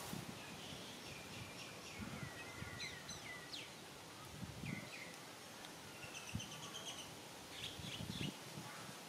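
Outdoor ambience of birds chirping on and off: short high chirps and falling notes, and a quick trill of repeated notes about two-thirds of the way in. A few soft low bumps sound under the background hiss.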